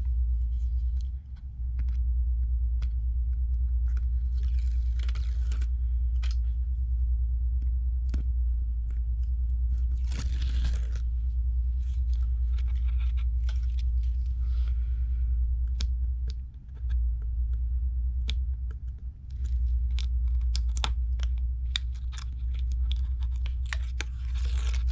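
Protective film and tape liners being peeled and torn off a replacement iPad screen, with small clicks and rustles of handling, over a steady low hum.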